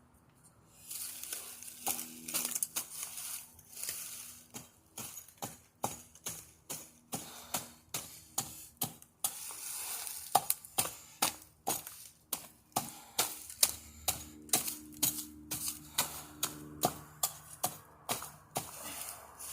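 A hand blade chopping at palm, about two sharp strikes a second, starting about a second in, with a crackling rustle between strikes.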